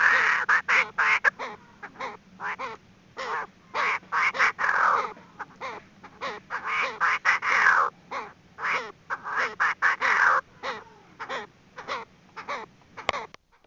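Female Chinese francolin calling: runs of rapid, short notes in bouts that come every few seconds, stopping abruptly near the end.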